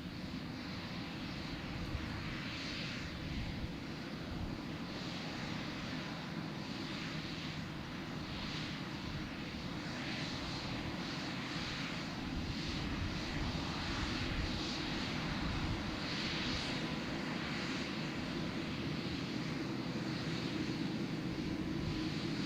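Jet airliner taking off, its engines at takeoff power: a low rumble with a hiss above it, gradually getting louder.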